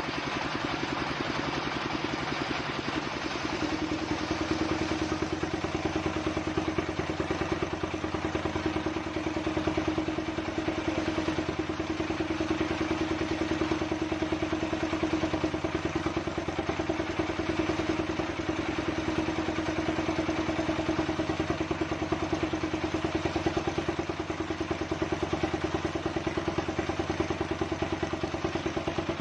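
Engine-driven circular saw running steadily, its engine note shifting about three and a half seconds in and then holding.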